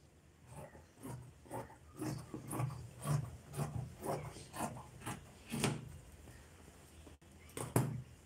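Scissors snipping through pure cotton fabric in a steady run of cuts, about two a second. After a pause there are two more short sounds near the end.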